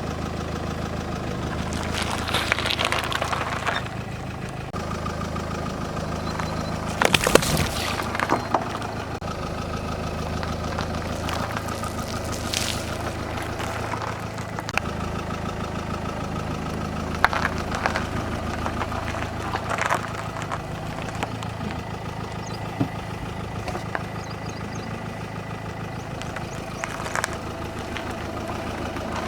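Car tyre rolling over objects and crushing them, with crackling and snapping crunches that come and go, the loudest about seven seconds in. The car's engine runs at a low, steady idle underneath.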